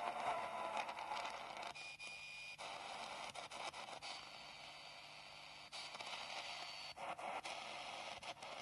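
SI4735 longwave radio receiver playing through a small speaker while being tuned step by step up the band: hiss and crackling static between stations, broken by short dropouts as it steps in frequency. A brief steady whistle comes about two seconds in and a longer, higher one from about four to seven seconds.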